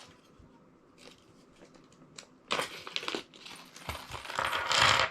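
Parts being handled during assembly: a few light clicks, then a burst of rustling and scraping about two and a half seconds in, and a louder stretch of it near the end.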